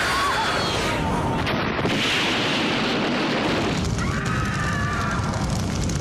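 Fire and explosion sound effects: a loud, continuous rumbling rush. Higher held tones join in about four seconds in.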